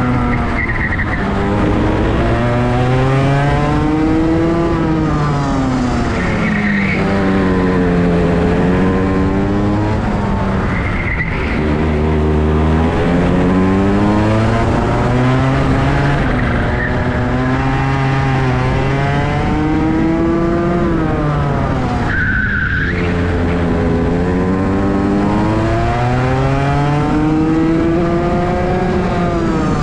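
Rotax 125cc two-stroke kart engine at racing speed, its revs climbing and falling several times as the kart accelerates along the straights and lifts off into the corners. A few short, high squeals cut in.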